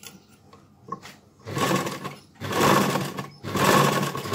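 Sewing machine stitching through cloth in three short runs of about a second each, after a couple of light clicks. This is a test run after the upper thread tension was loosened, and it produces a correct stitch with no loose loops.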